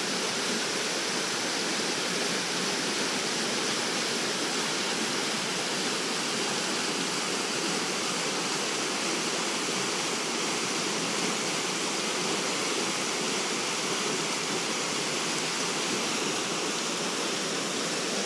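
Mountain river water rushing steadily over rocks, a constant even rush with no change.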